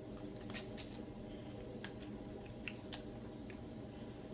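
Faint, scattered crinkles and clicks of a plastic candy wrapper being handled and torn open, over a steady low hum.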